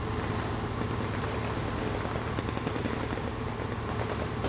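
A steady low engine drone running at an even pitch and level.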